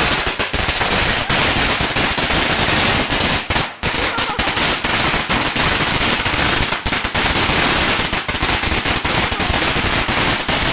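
A long string of red paper firecrackers going off on paving stones: a very loud, unbroken run of rapid bangs, with a brief lull about four seconds in.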